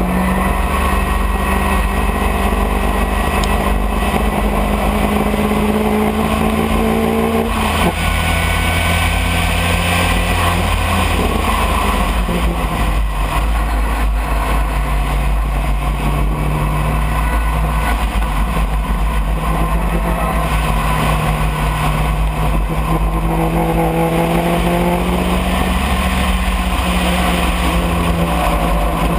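Race car engine running hard, heard onboard an open-cockpit car: its pitch climbs slowly, drops sharply at a gear change about eight seconds in, then holds and climbs again. Steady wind and road noise run underneath.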